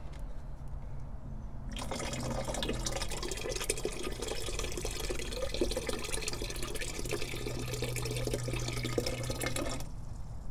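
Water running from a rain barrel's spigot into a plastic watering can. It starts about two seconds in and stops shortly before the end as the spigot is closed.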